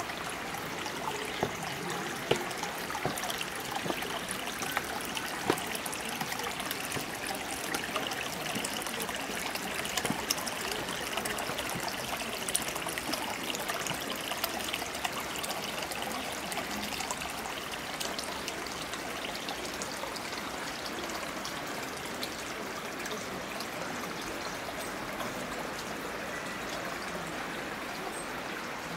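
Water running and trickling down a narrow stone channel into a stone basin: a steady stream sound with scattered small splashes, more of them in the first half.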